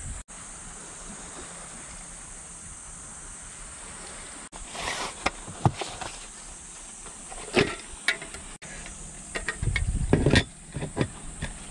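Steady hiss of outdoor ambience, then a run of sharp clicks and knocks, heaviest about ten seconds in, as camping gear is handled: a hard-plastic storage box and a small aluminium slat-top low table being set on top of it.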